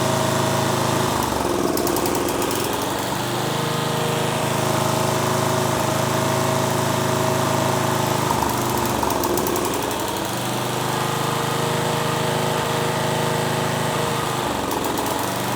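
John Deere S92 riding lawn mower engine idling while it warms up after a start on old, stale fuel, its note wavering briefly a few times.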